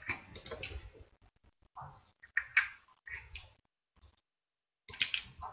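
A 30 ml plastic cosmetic jar handled and unscrewed: a few light plastic clicks and knocks, the sharpest about two and a half seconds in, then a second or so of dead silence.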